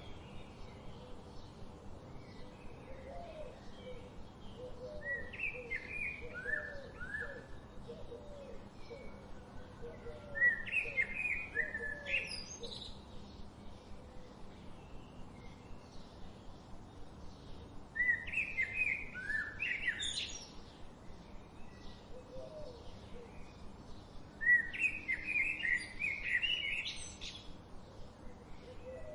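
Songbirds singing: three louder song phrases of quick high notes, several seconds apart, over softer chirping and a low background hiss.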